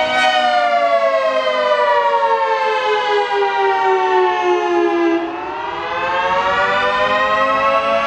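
Federal Sign & Signal 3T22 three-tone outdoor warning siren on its attack cycle: the chord winds down in pitch for about five seconds, then starts climbing again. Its level drops a little as the rise begins, when the chopper motor is powered and the dampers shut.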